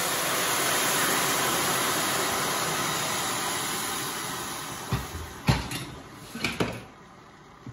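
Warm water poured from a stainless steel kettle into a pan of shredded covo greens: a steady splashing rush that fades out about four seconds in. A few sharp knocks follow, about five and a half seconds in and again near six and a half.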